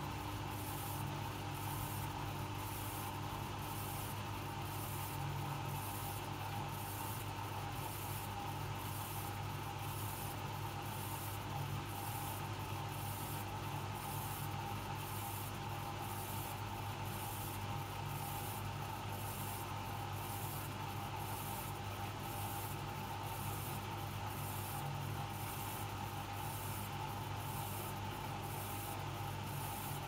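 Hoover Dynamic Next DXOA 68C3R-80 washing machine running an empty spin-only cycle, its drum turning slowly. A steady low motor hum with a faint whine sits under a soft swish that repeats evenly about one and a half times a second.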